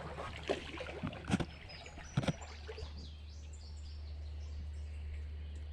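Pool hydrophone on a listening pole picking up a few sharp knocks as it is handled and lowered into the water, then a steady low underwater hum from about two and a half seconds in.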